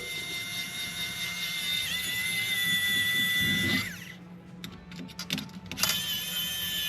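Cordless electric screwdriver whining at a steady speed as it backs out screws, winding down and stopping after about four seconds; a few small clicks follow, then it starts running again near the end.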